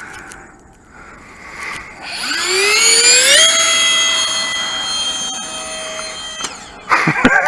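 An RC plane's motor and propeller spools up quickly from low throttle to full throttle, a whine that rises steeply in pitch and then holds steady for about three seconds before cutting off. It is followed near the end by a short burst of loud clattering knocks.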